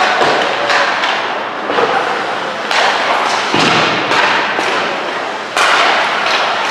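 Ice hockey play: a string of loud knocks and thuds, one or two a second, each ringing on briefly in the rink's echo.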